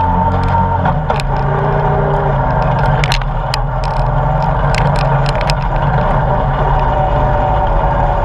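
ATV engine running steadily while riding over a rocky dirt trail, with a steady whine and scattered sharp clicks and knocks from the stones and the machine.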